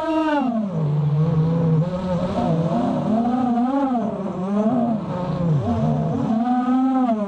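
FPV quadcopter's Cobra 2206 2100kv brushless motors spinning HQProp 5x4.5 propellers, a steady whine whose pitch rises and falls every second or so as the throttle is worked, with a deep drop in pitch about six seconds in.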